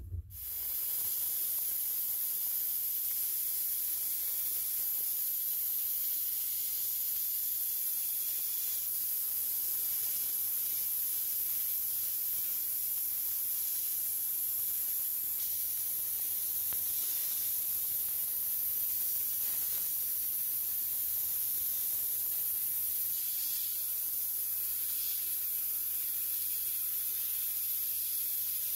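Sandblaster nozzle in a blast cabinet blasting abrasive onto rusty steel parts of an old clothes iron: a steady, unbroken hiss of compressed air and grit that comes in about half a second in.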